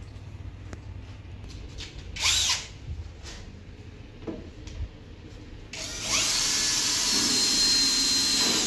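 Cordless drill running against the cabinet's white laminated board: a short spin-up about two seconds in, then a longer steady run of about three seconds near the end.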